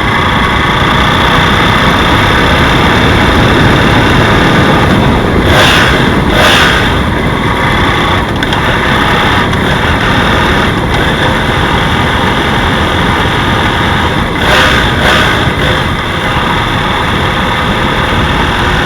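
BMW F 800 GS parallel-twin engine running, with the knocking noise whose cause the owner doesn't know. It gets briefly louder twice, about six and fifteen seconds in.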